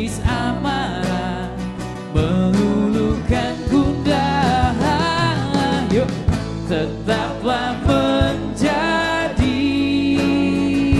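Live band music: a male lead singer singing over strummed acoustic guitar, bass and drums.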